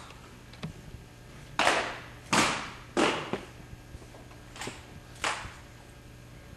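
Sharp slaps and clacks of 1903 Springfield rifles being handled in a drill manual, as hands strike the wooden stocks. There are about six strikes, irregularly spaced from half a second to a second apart.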